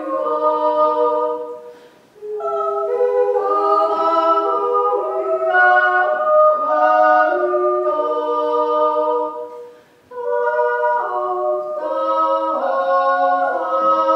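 Two female voices singing a cappella in two-part harmony, with brief breaks between phrases about two seconds in and again near ten seconds.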